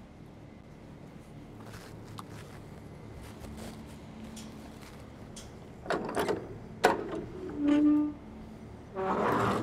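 Handling of a semi-trailer's ratchet strap and bent mud flap hanger bar: a rattle about six seconds in, a sharp metal clank, then a short creak, with a scraping rustle near the end over a low steady background hum.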